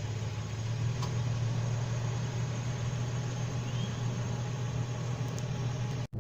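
Toyota FJ Cruiser's V6 engine idling, a steady low hum.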